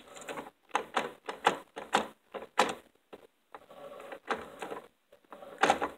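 Plastic clicking and rattling from a Lego chain and G-scale model train cars being handled and hooked together: a string of sharp clicks and knocks at irregular intervals.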